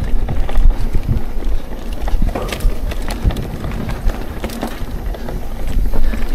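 Mountain bike riding fast down a dirt forest trail: a steady low rumble of the tyres and wind on the microphone, with frequent rattles and knocks from the bike as it runs over bumps and roots.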